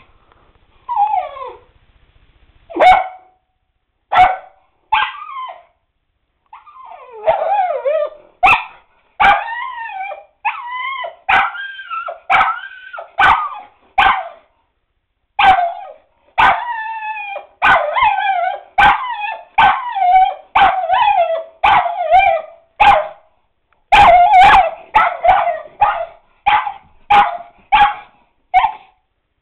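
A dog barking and yelping over and over, high-pitched pitched barks with some drawn into short howling yips. A few scattered barks come first, then from about seven seconds in they run almost without a break at one or two a second.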